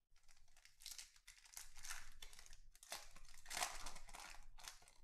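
Foil wrapper of a Topps Chrome Black trading-card pack being torn open and crinkled by hand: a run of crackling rustles, loudest about three and a half seconds in.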